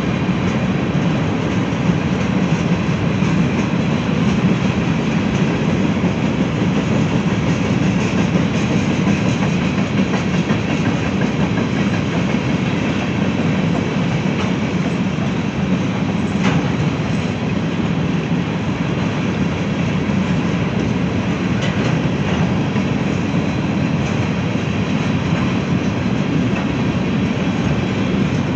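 Freight cars of a Norfolk Southern mixed freight train rolling past: a steady, loud rumble of wheels on rail, with a few faint clicks in the middle.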